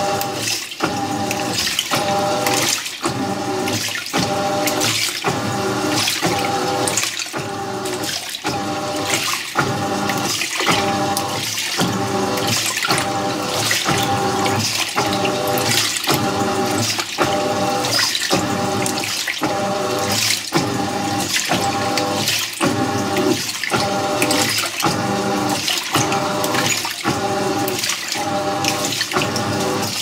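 Haier top-load washer agitating a towel load in its wash cycle. The wash motor drives the pulsator back and forth with a rhythmic whine, reversing roughly three times every two seconds, while water sloshes through the overloaded tub of towels.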